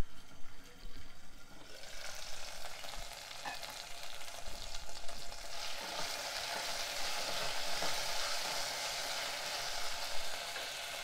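Drumstick and okra pieces sizzling in hot oil in a stainless steel pot, stirred with a wooden spatula. The sizzle is weaker for the first couple of seconds, then grows louder about two seconds in and again around six seconds in as the pieces are stirred.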